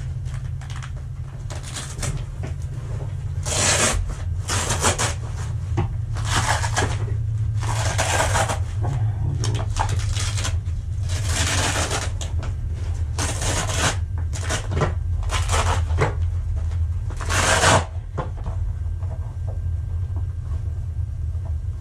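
Nylon MOLLE tactical vest being handled and its flaps and pouches worked open: a dozen or so short, irregular rustling and tearing bursts of fabric, over a steady low hum.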